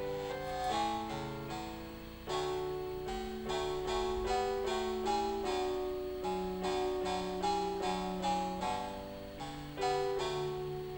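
Amstrad CPC's AY-3-8912 sound chip playing a classical piece in three voices from incoming MIDI notes. Each note comes in sharply and then fades, giving a plucked, harpsichord-like chiptune.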